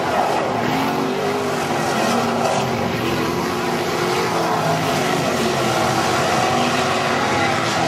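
Non-wing sprint cars racing on a dirt oval: several engines at high revs, their pitch rising and falling as the cars accelerate and lift through the turns.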